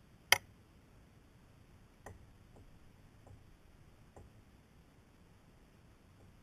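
A few sharp clicks and knocks from handling fishing tackle on a plastic kayak: one loud click about a third of a second in, then fainter, sparser ones around two to four seconds in.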